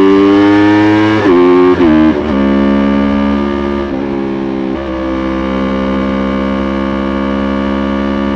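Yamaha YZF-R3's parallel-twin engine pulling with slowly rising revs, then two quick upshifts about one and two seconds in, after which it holds a steady, even engine speed.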